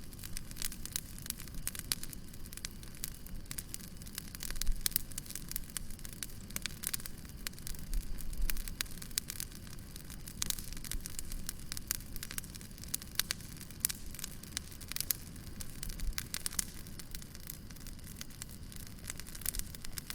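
Fireplace fire crackling, with frequent sharp pops over a steady low rumble of the flames. A couple of louder low thuds come about five and eight seconds in.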